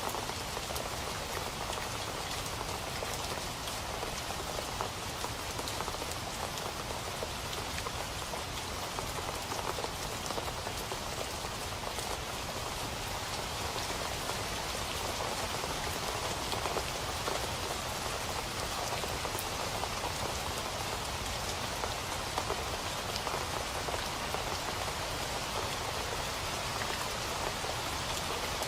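Steady rain falling on a hard surface, a dense patter of many drops with fine individual drop ticks, even throughout.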